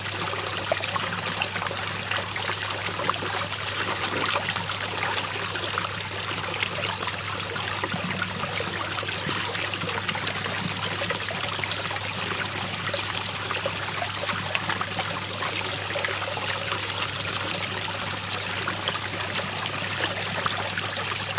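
Water swirling in a whirlpool and draining down a hole, a steady rushing trickle, with a constant low hum underneath.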